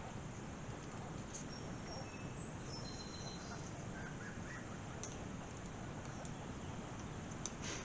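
Low steady background hiss with a few faint, short high chirps, and light clicks and a brief scrape near the end from small parts being handled while a carburetor gasket is worked loose by hand.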